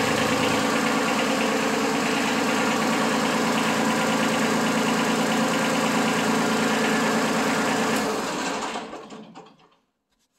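Kubota B2301 compact tractor's three-cylinder diesel engine running steadily, then fading away over the last two seconds.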